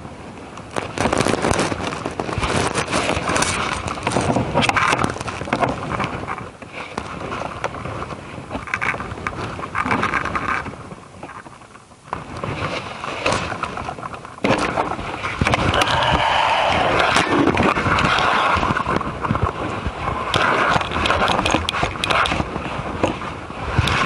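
Clattering, knocking and scraping as a garden shredder with a loose, broken frame is gripped, shaken and tilted on its wheels, in uneven stretches with brief lulls.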